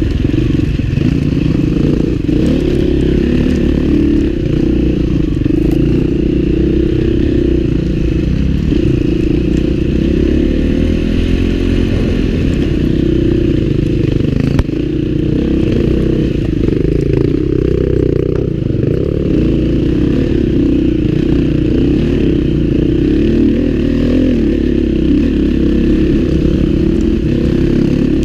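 Husqvarna four-stroke enduro dirt bike engine pulling steadily on a rough trail, its pitch rising and falling a little with the throttle. One sharp knock about halfway through.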